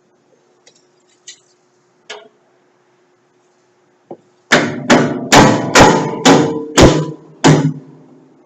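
A hammer striking metal seven times in quick succession, about two blows a second, each blow ringing on after it. The blows start about halfway through, after a few faint clicks.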